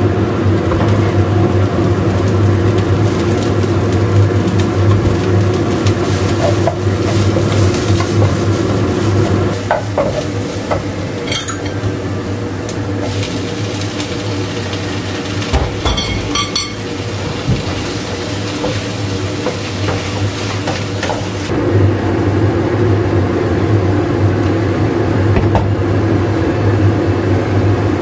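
Chopped onion and then tomatoes sizzling and being stirred in a wok with a wooden spatula, over a steady low hum. A few sharp clinks in the middle as the bowl and spatula knock against the pan.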